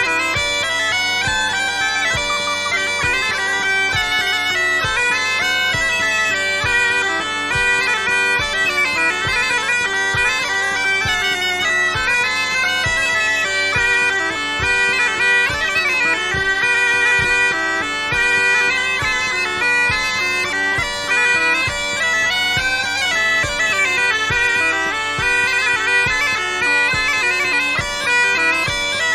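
Bagpipe music: a melody played over a steady drone.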